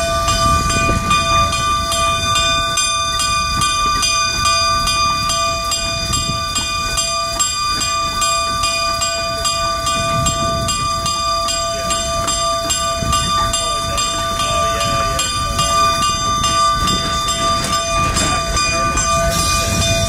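Cab sound of a Denver & Rio Grande Western K-36 narrow-gauge 2-8-2 steam locomotive on the move: a steady rumble and hiss with a constant high-pitched whine running over it.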